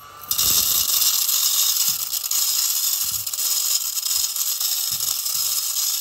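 Battery-powered mini desk vacuum cleaner switching on about a third of a second in and running with a steady high whine and hiss, sucking up loose rice grains through its narrow nozzle, with the grains rattling inside.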